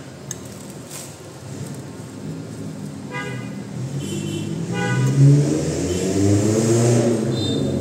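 A motor vehicle passing, its engine growing louder from about four seconds in and rising then falling in pitch, with a few short horn toots.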